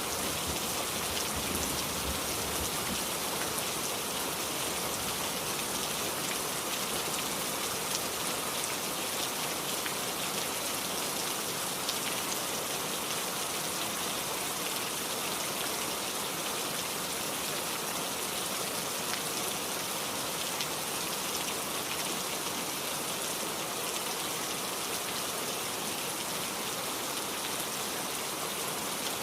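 Heavy rain falling steadily, a dense even hiss of drops. A low thunder rumble dies away in the first second or two.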